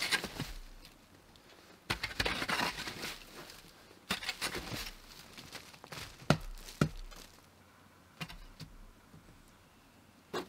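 A long-handled tool scraping and dragging through loose soil and leaf litter in three short strokes, followed by a few light knocks.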